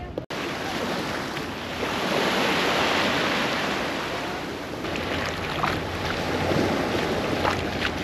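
Small waves washing onto a sandy beach, with wind on the microphone. The wash swells about two to three seconds in, and short splashes come through in the second half.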